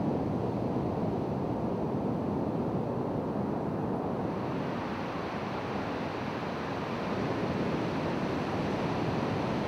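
Ocean surf breaking on a sand beach, a steady rush of waves that turns hissier about halfway through.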